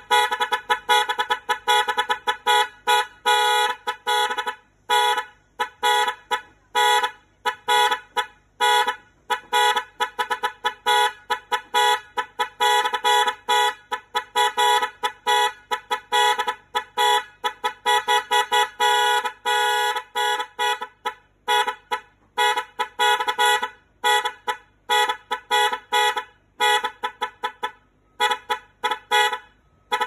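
A pair of electric disc horns driven by a horn controller, sounding fast on-off honking patterns of short beeps that change rhythm every few seconds, like an alarm.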